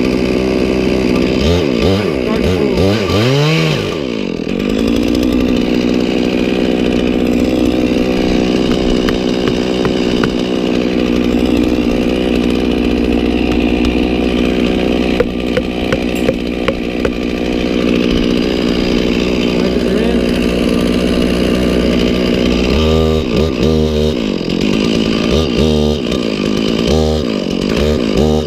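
Chainsaw revving up and down for a few seconds, then held at full throttle in a long steady cut through the tree trunk. Near the end the throttle is blipped on and off repeatedly.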